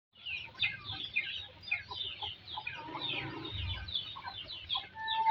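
Chickens clucking and chirping, with many short, quick, falling peeps.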